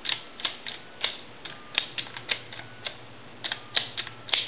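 Push buttons of a Princess touch-tone telephone keypad being pressed one after another, a dozen or so sharp plastic clicks at an uneven pace, several followed by a short faint steady tone as each digit is dialed.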